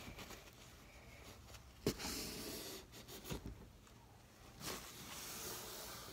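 Faint handling sounds on a tabletop, with a sharp tap about two seconds in and a softer one about a second later.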